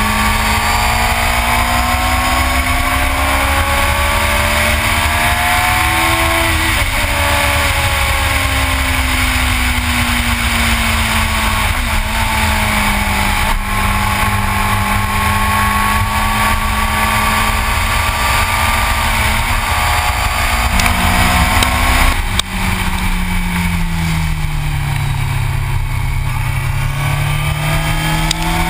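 Yamaha R6 sport bike's inline-four engine running at speed, its pitch rising and falling with the throttle through the curves, over steady wind rush on the camera. About three-quarters through, the engine note drops suddenly and then climbs again.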